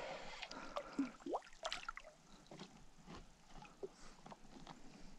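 Faint small splashes and drips of water from a hooked northern pike thrashing at the surface beside a kayak, with scattered light ticks.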